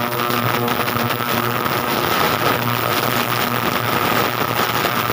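A motor running steadily: a hum with a high whine held at one pitch throughout.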